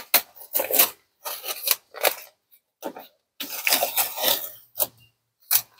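Blue painter's tape being peeled off a plastic step plate and crumpled in the hand, in several short ripping, crinkling bursts.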